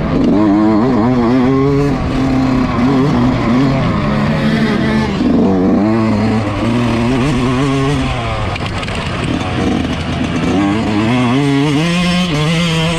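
Yamaha YZ125 two-stroke single-cylinder dirt bike engine, heard close up from on the bike. It revs up and drops back over and over as the rider works the throttle and gears around the track, then climbs for longer near the end.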